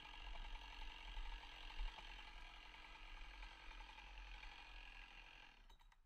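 Faint steady engine drone that cuts off suddenly shortly before the end.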